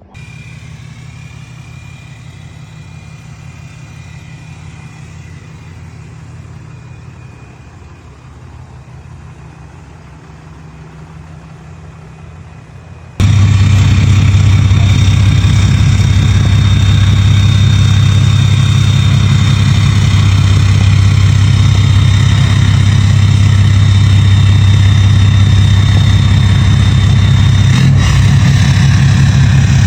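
Cummins inline-six turbo diesel in a pickup idling steadily, with an even low pulse. About 13 seconds in it suddenly becomes much louder and closer, then keeps idling at the same steady pace.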